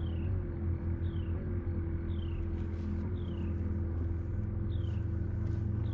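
Steady low hum of a boat motor, with short high chirps that fall in pitch and repeat about once a second.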